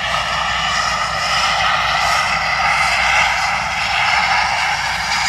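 Air ambulance helicopter's turbine engines running on the ground, a loud steady whine over a low rumble.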